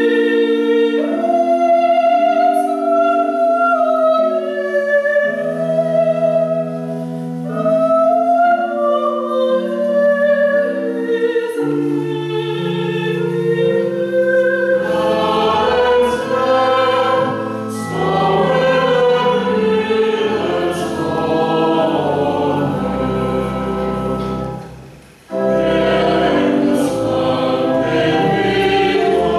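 A hymn sung by several voices in harmony, with sustained notes; lower, fuller voices join about halfway, and the singing breaks briefly near the end before the next line begins.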